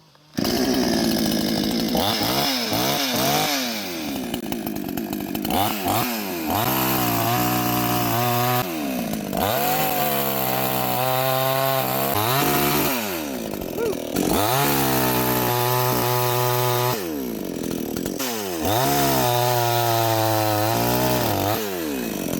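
Neotec 62 cc two-stroke gas chainsaw starting up sharply and running hard while cutting wood. The engine pitch sweeps up and down, then holds steady under load for a few seconds at a time, several times over.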